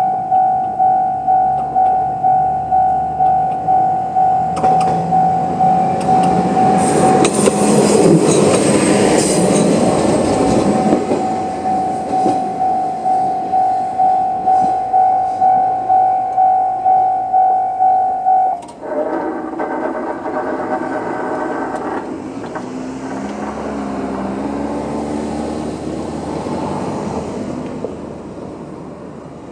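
Japanese level-crossing alarm: an electronic bell in the JR Central style rings in a steady rhythm while an Aizu Railway AT-550 diesel railcar passes. The railcar's engine and wheels are loudest about seven to eleven seconds in. The bell cuts off suddenly a little past halfway, followed by a few seconds of motor hum as the electric barriers rise, then a low engine sound.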